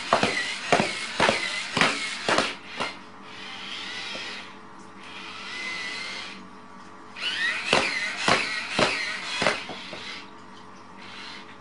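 A small robot's electric motor whining, with a run of sharp clacks about two a second. Then a softer hiss and wavering whine for a few seconds, and a second run of clacks.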